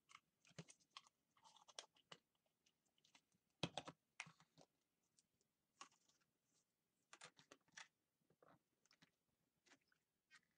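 Faint, scattered clicks and taps of plastic Play-Doh tubs and lids being handled and stacked, with one louder knock about three and a half seconds in.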